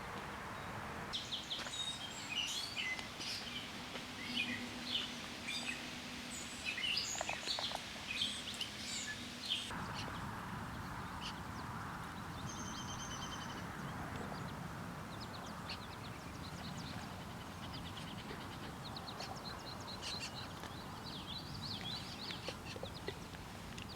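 Birds calling: a quick run of many short, high chirps over a steady background hiss, then, after a change of recording about ten seconds in, a short held whistle and scattered chirps.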